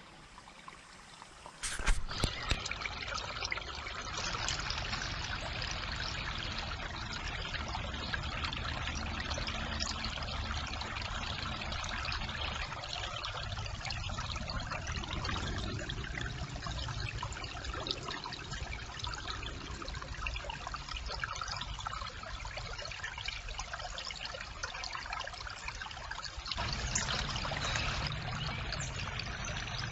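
Shallow brook water trickling steadily, heard through a trail camera's microphone. A click about two seconds in, and the water sound steps up louder near the end.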